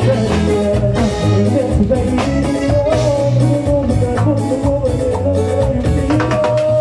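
Live band playing Latin dance music close up: electric guitar, keyboard, drum kit with timbales and a steady bass line, with a rhythmic beat throughout.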